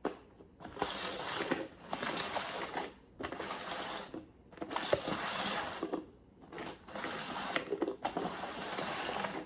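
Cups being slid and shuffled across the floor, scraping in about seven stretches of roughly a second each with short pauses between.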